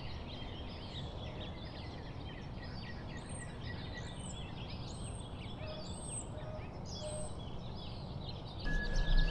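Birds chirping, a dense chorus of short calls, with one higher arched call repeating about once a second in the middle. Near the end a louder sound with a steady high tone comes in.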